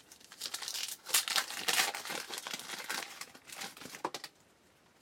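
Crinkly wrapper of a trading card pack being torn open and handled: irregular crackling for about three seconds that stops abruptly.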